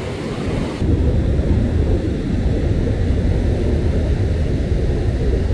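Strong wind buffeting the microphone, a loud steady low rumble that jumps up about a second in, over the wash of breaking surf.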